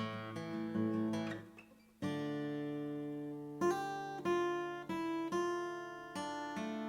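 Martin CEO-7 acoustic guitar being played. A chord rings and dies away, then a new chord is struck about two seconds in and left ringing while further notes are picked over it.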